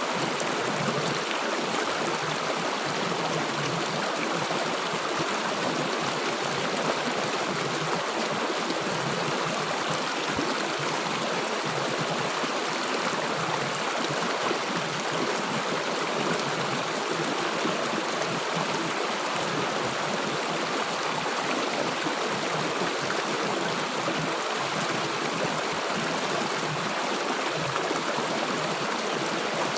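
River water flowing and gurgling steadily over rocks, a constant rushing noise.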